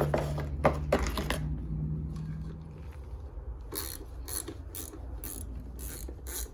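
Hand ratchet wrench clicking in repeated short strokes, about two a second, starting a few seconds in.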